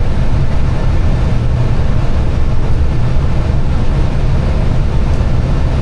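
Steady low rumble and rush of airflow and engine noise inside an Airbus airliner's cockpit on final approach.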